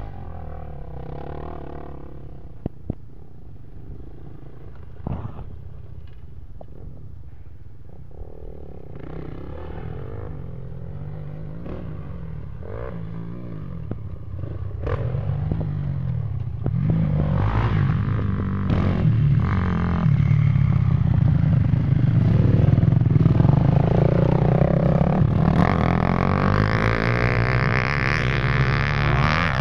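Engines of a quad ATV and a dirt bike running and revving off-road, the pitch rising and falling with the throttle. Faint at first, they grow clearly louder over the second half.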